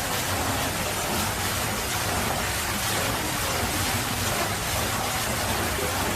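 Water falling and rushing steadily into the tank of a water mill: an even, unbroken rush.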